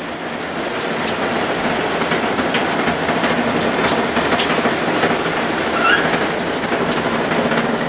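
Faucet running full on hot water, spitting and sputtering with the air still trapped in the freshly refilled pipes.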